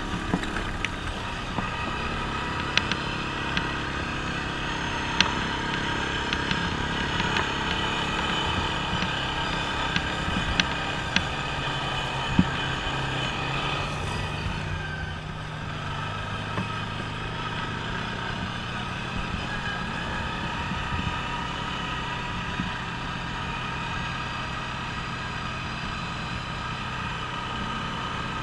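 Off-road ATV engine running steadily while riding over sand and gravel, its note shifting about halfway through. Scattered sharp ticks in the first half.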